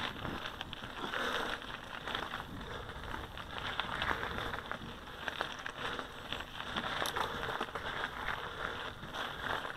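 Mountain bike tyres rolling over a loose gravel track: a steady crunch of stones under the tyres, with scattered small sharp clicks.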